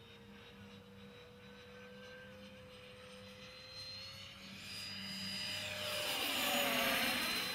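Freewing A-4 Skyhawk model's 80mm electric ducted fan whining in flight. It is faint at first, with a slowly rising tone, then swells into a loud rushing whine as the jet makes a close pass. The whine peaks about a second before the end and begins to fade.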